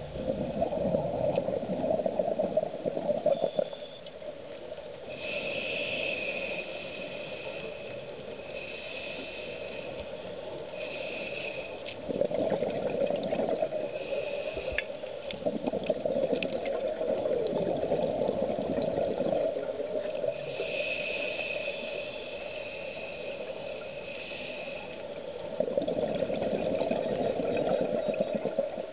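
Scuba regulator breathing underwater: each inhalation draws a hiss with a high whistling tone, and each exhalation releases a long burst of bubbling, the two alternating several times.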